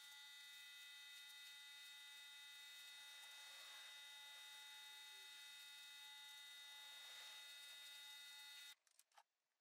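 Near silence: a faint steady electrical hum with several high, unchanging tones, cutting out for about a second near the end.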